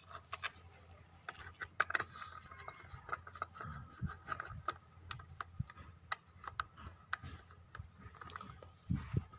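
Irregular clicks, taps and light rattles of hand tools and small parts on a petrol generator being taken apart, with a couple of duller knocks around 4 s and 9 s.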